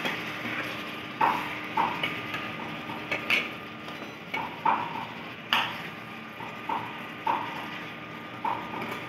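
A metal spoon stirring pork pieces in a stainless steel kadai, clinking and scraping against the pan at irregular intervals of about half a second to a second, over a steady hum.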